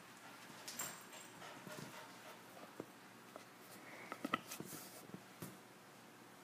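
A Great Dane and a boxer puppy play-wrestling: faint scuffling and scattered taps and knocks of paws on the floor, with a brief high-pitched yip about four seconds in.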